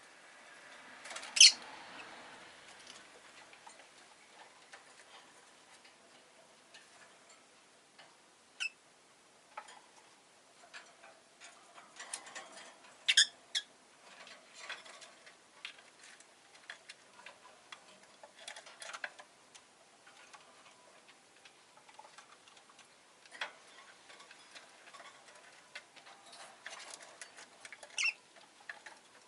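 Rosy-faced lovebird giving short, sharp chirps now and then, the loudest about a second and a half in, with two quick ones close together near the middle. Between the calls come light clicks and ticking.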